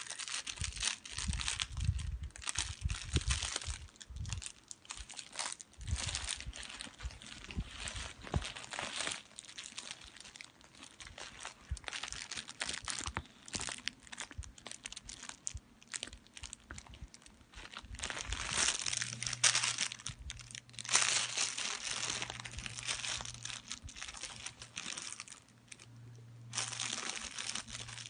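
Husky puppy mouthing and chewing a large plush toy: continual rustling and crinkling of fabric and bedding with many small clicks. A low steady hum comes and goes in the second half.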